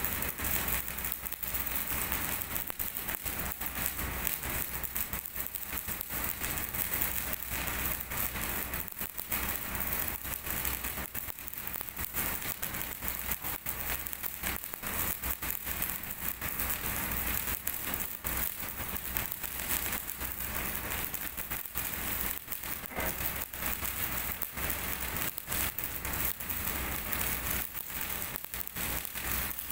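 MIG welding arc burning on steel: a continuous crackle with no breaks.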